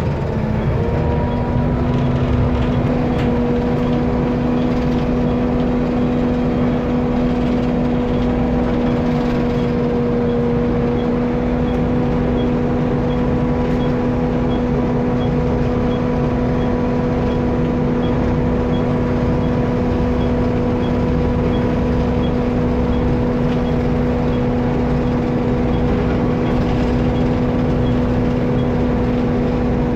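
Diesel engine of an Alexander ALX400 double-decker bus, heard from the back seats of the lower deck, running at steady revs with an even droning pitch.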